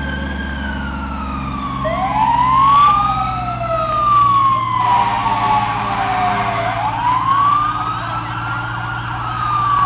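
Fire truck sirens wailing, two of them out of step, each pitch slowly rising and falling over a few seconds, with a steady low truck engine hum beneath.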